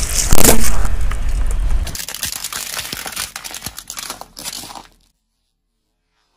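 A car tyre crushing plastic containers of water beads: a loud crack as the plastic bursts, then a run of crackling and small clicks as the beads squash and scatter. It cuts off suddenly about five seconds in.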